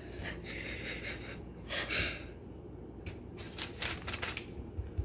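Quiet handling noise: two short bursts of rustling in the first couple of seconds, then a few light clicks and taps about three and a half seconds in.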